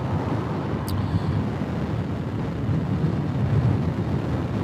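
Steady wind rush and road noise while riding a Horwin SK3 electric scooter at speed, accelerating from about 40 toward 50 mph.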